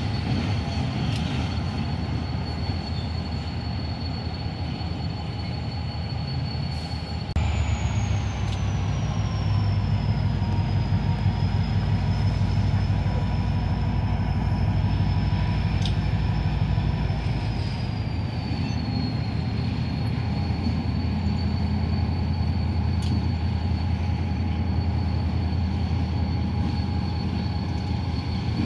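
Freight train rolling by with a steady low rumble and a thin, high wheel squeal that slides down in pitch a few times. The rumble gets louder about seven seconds in.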